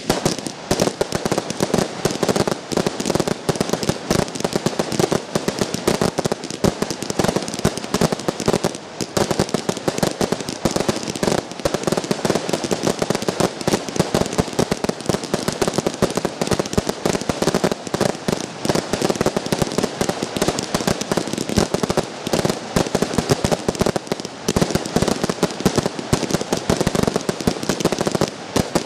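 Fireworks fired from ground batteries, sending up comets in quick succession: a dense, unbroken string of launch bangs and pops.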